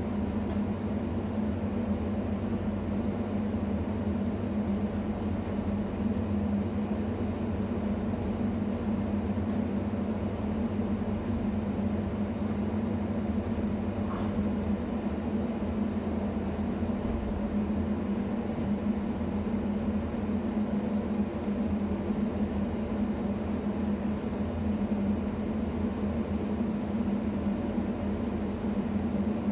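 Steady hum of a stationary ČD class 640 RegioPanter electric multiple unit, its auxiliary equipment running while the train stands at a platform.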